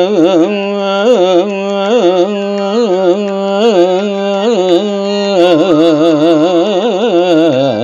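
Male voice singing a Telugu padyam in Carnatic style, drawing out the verse's closing syllables in long melismatic phrases with rapid pitch ornaments (gamakas). A steady accompanying tone comes in about five seconds in.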